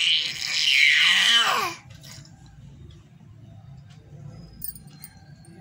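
A toddler's loud, high-pitched squeal lasting under two seconds, its pitch falling at the end. After that it goes much quieter.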